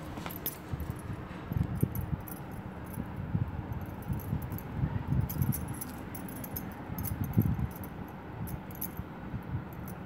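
Glass bangles on the wrist clinking and jingling lightly in short, irregular clicks, with uneven low bumps and rubbing from hands working wet papier-mâché.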